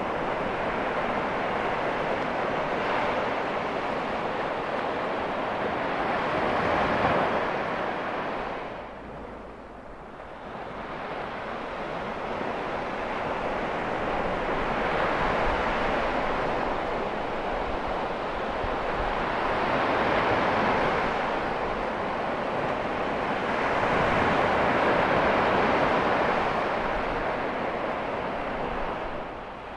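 Ocean surf breaking and washing ashore, a steady rushing that swells and eases in slow surges every few seconds, with a brief lull about nine seconds in.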